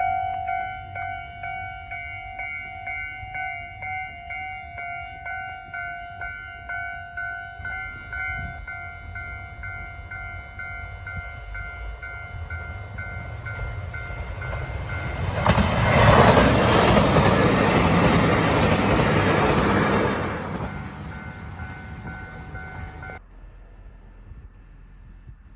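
Japanese level-crossing electronic warning bell ringing in a steady, repeating ding. A single diesel train approaches and passes loudly over the crossing in the middle. The bell cuts off suddenly a few seconds later as the crossing clears.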